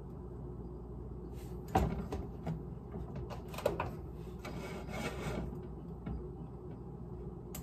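Cookware handled on a stovetop: a few light knocks and clinks of a stainless steel pot and pan lids, one with a brief ring, and a short stretch of hiss about five seconds in, over a low steady hum.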